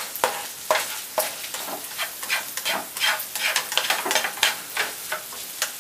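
Egg and beef sizzling in a hot nonstick frying pan while a spatula stirs and scrapes them, scrambling the egg, in a quick run of short scraping strokes over the steady sizzle.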